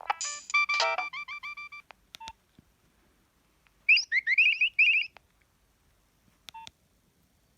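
Nokia 3120 mobile phone playing preloaded ringtones through its small speaker: a quick electronic tune of stepping notes ends, a click with a short beep follows, then a brief run of chirping rising notes, and another click with a short beep near the end.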